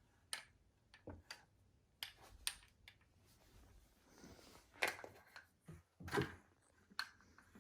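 Faint, irregular clicks and soft knocks, about a dozen, of small objects being handled in a quiet small room.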